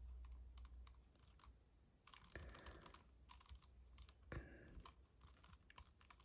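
Faint, irregular clicking of a magnetic 7x7 speed cube's layers being turned in quick succession.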